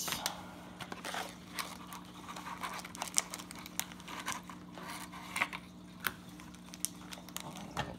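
Packaging of a baseball-card repack box being opened: plastic wrap crinkling and cardboard tearing in scattered short rustles and clicks, over a faint steady hum.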